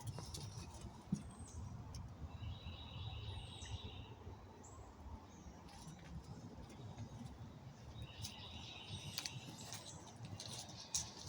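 Birds chirping faintly, with two longer trilling calls, over a low steady rumble.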